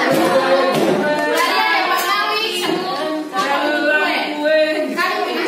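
A group of people singing together, many voices in unison, with a few short sharp claps or knocks.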